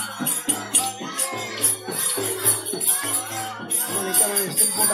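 Devotional bhajan singing by a group of voices, kept in time by small hand cymbals struck in a steady beat that rings high above the singing.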